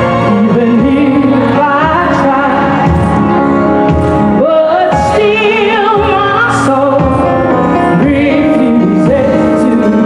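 A woman singing a gospel song live, holding long notes with wide vibrato, over band accompaniment.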